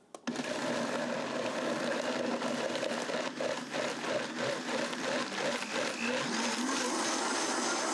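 Countertop blender switched on about a quarter-second in and running steadily, blending young coconut meat with vanilla and water into a thick cream. Its tone wobbles regularly through the middle and evens out near the end.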